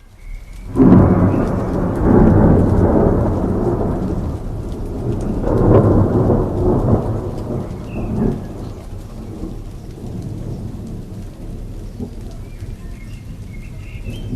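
Thunder rumbling over steady rain: a loud peal about a second in, a second long rumble around six seconds, and a shorter one a couple of seconds later, then the rain keeps falling on its own.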